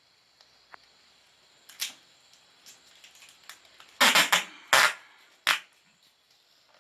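Clear adhesive tape pulled off its roll in short pulls: a faint one about two seconds in, then several louder ones between about four and five and a half seconds. The tape is being stuck along the metal edge of an LCD panel.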